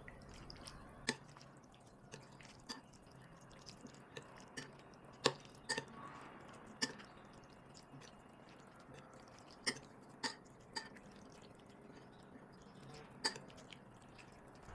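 A metal spoon clinking against a bowl of soto now and then as the seasoning is stirred in: about fifteen light, sharp taps at irregular intervals.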